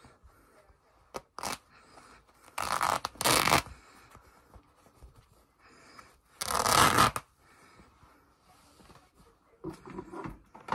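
A hoodie being torn apart by hand at the neckline: fabric ripping in a short tear, then two long, loud rips about three seconds in and halfway through, with softer cloth handling near the end.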